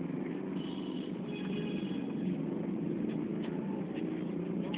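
Steady low rumble of a running motor vehicle.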